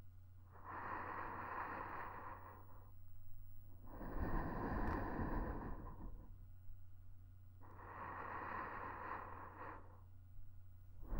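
Slow, close breathing into a KU100 binaural dummy-head microphone: three long breaths of about two seconds each, the middle one louder with a deep rumble. A faint steady low hum runs underneath.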